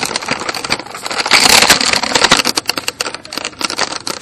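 Rapid, dense rattling and clicking of carried gear jostling as the wearer moves, loudest around the middle and thinning out near the end.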